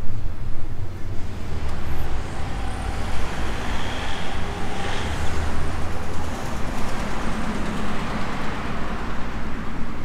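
Street traffic: a vehicle passing close by, its tyre and engine noise swelling to a peak about five seconds in and then easing off, over a steady low rumble.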